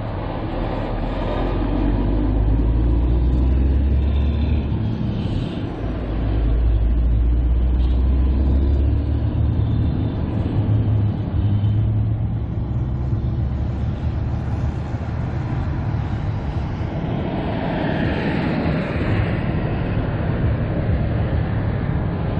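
Wind buffeting the microphone of a camera mounted on a moving electric bike, gusting in a deep rumble, over steady road and traffic noise. A louder rush of noise swells up and dies away near the end.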